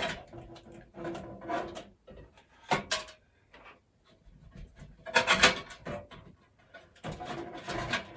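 Scrapes, rubs and knocks of a motherboard being shifted inside a PC case as its rear ports are lined up with the I/O shield, in irregular bursts with the loudest about five seconds in.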